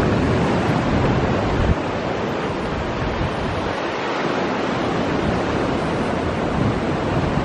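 Ocean surf washing onto a rocky shore in a steady rush, with wind gusting on the microphone.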